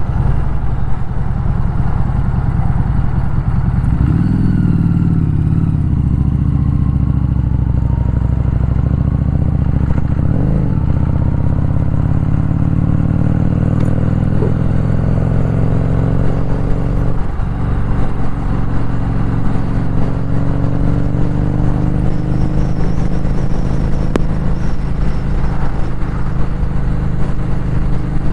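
Motorcycle engine running under way, heard from the rider's seat. Its pitch climbs slowly in stretches and dips briefly a few times as the throttle changes.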